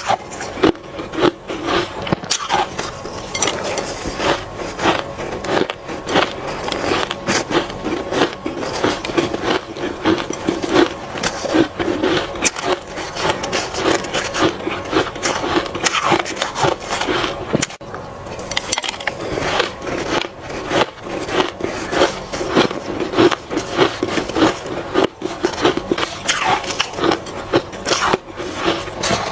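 Ice crunching as it is bitten and chewed, a dense, unbroken run of sharp cracks and crackles.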